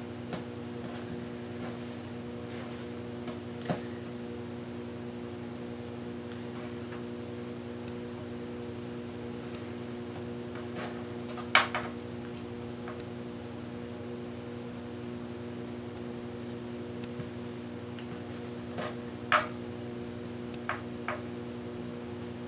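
Steady electrical hum at several fixed pitches, with scattered soft taps and clicks from hands knotting T-shirt fabric strips on a tabletop; the loudest tap is about halfway through, and a few more come near the end.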